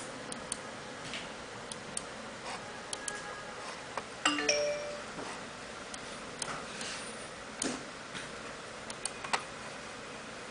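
Computer mouse clicks, scattered and sharp, as buttons and folders are picked in a Windows driver-installation dialog. About four seconds in, a short electronic chime with a few pitched notes is the loudest sound, likely a Windows system sound. A steady hiss runs underneath.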